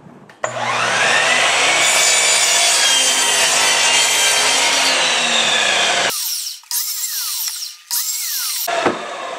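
Sliding compound miter saw starting up with a rising whine, then running and cutting through two stacked redwood boards. In the last few seconds the whine slides down in pitch and wavers.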